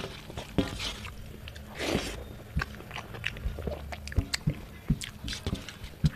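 Close-up eating sounds: fingers squishing and scraping rice against a brass plate, with wet mouth smacks and chewing clicks scattered irregularly.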